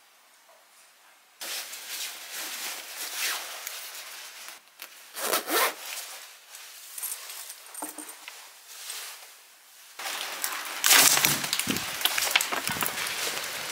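Rustling of a heavy coat with a zip scraping as it is done up, in several strokes. About ten seconds in, louder rustling and handling of a black umbrella begins outdoors.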